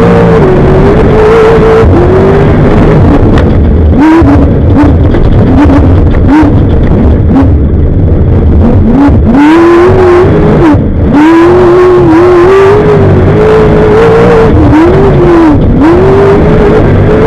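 Off-road race vehicle's engine at racing speed, loud throughout. Its note holds high, then drops sharply and climbs back again about half a dozen times as the throttle is lifted and reapplied. Sharp knocks from the vehicle jolting over rough ground come through it.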